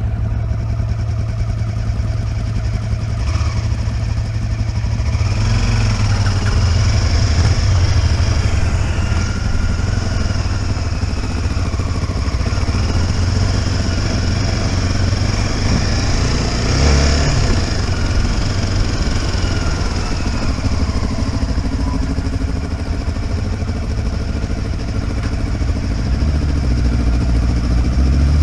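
Motorcycle engine running steadily under way, its pitch rising and falling a few times with the throttle.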